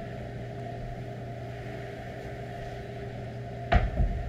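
A heavy kettlebell set down with a dull thud about three-quarters of the way through, over a steady low hum in the room.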